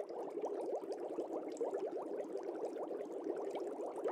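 Aquarium sponge filter bubbling steadily: a fast, continuous stream of small air bubbles, each a short rising blip.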